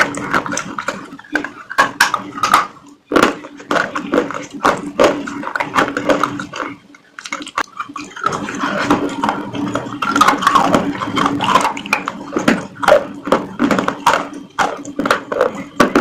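Close-miked chewing and crunching of food: irregular sharp crunches and wet mouth sounds, several a second, pausing briefly twice.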